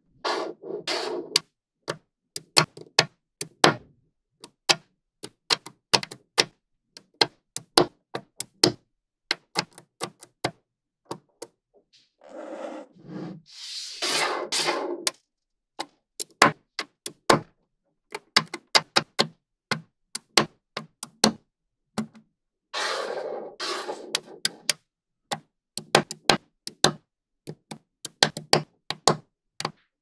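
Small magnetic balls clicking as they snap together one by one, in quick irregular clicks. Twice, a little before halfway and again past two-thirds, a longer stretch of a second or two of many balls rattling against each other.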